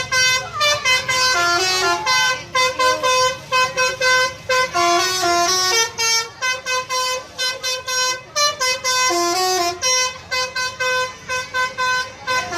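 A bus's 'telolet' multi-tone musical horn playing a quick melody of short notes at several pitches, the tune repeating with brief gaps between phrases.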